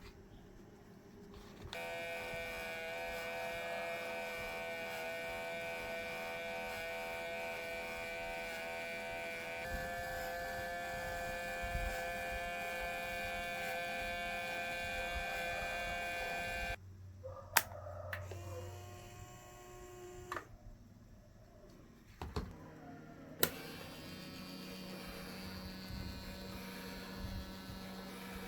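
Small electric motor running with a steady, pitched whine that shifts slightly in pitch about ten seconds in. It cuts off after about seventeen seconds, followed by short hums with brief gaps and a lower steady hum in the last few seconds.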